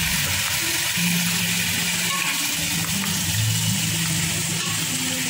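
Background music with guitar and low held notes that change pitch every second or so, over a steady high hiss.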